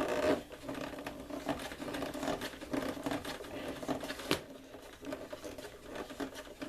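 A USB/12V socket being pushed and twisted into a tight mounting hole in a metal ammo can, making rapid small scraping and clicking sounds as it hangs up on the edge. One sharper click about four seconds in.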